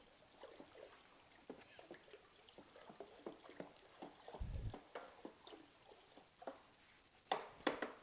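Scattered light clicks and taps of metal parts being handled on a workbench, with a low thud about halfway through and two sharper knocks near the end.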